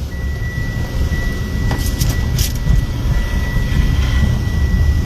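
Wind rumbling over a phone's microphone outdoors, with a faint steady high-pitched tone throughout and a few light clicks about two seconds in.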